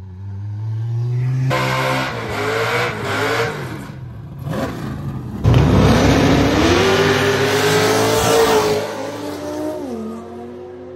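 Drag-racing cars revving at the start line, then launching with a sudden loud burst about halfway through and accelerating hard down the strip, engine pitch climbing. Near the end the sound fades, with the pitch dropping in steps at the gear changes.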